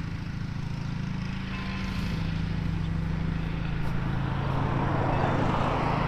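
Kawasaki GTR1000 motorcycle's inline-four engine idling steadily, with a rushing noise that grows louder in the second half.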